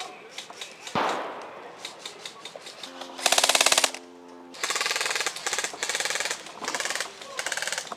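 Airsoft electric guns firing on full auto. A single sharp crack comes about a second in. A few seconds in there is a loud burst of rapid shots with a steady whine under it, then several shorter rapid bursts follow.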